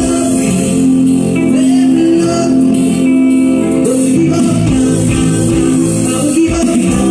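Live band playing a song, a man singing into a microphone over electric guitar, bass guitar and keyboards.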